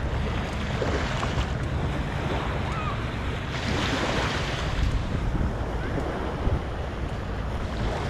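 Small waves breaking and washing up on a sandy shore, with wind rumbling on the microphone. A louder wash comes in about three and a half seconds in.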